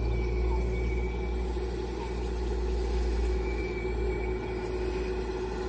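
Radio-controlled tracked excavator running as it drives and turns over grass: a steady hum over a low rumble.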